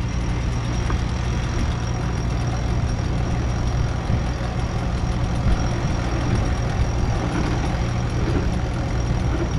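A sailboat's inboard diesel engine running steadily at low revs while the boat motors along, with an even hiss of water and wind over it.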